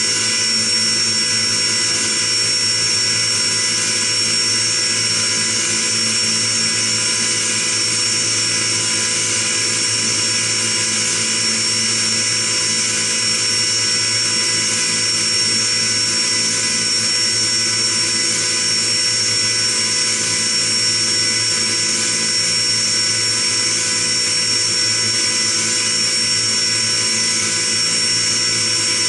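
CNC machining centre milling a metal block with an end mill: steady high spindle whine over the even noise of the cut, running without pause.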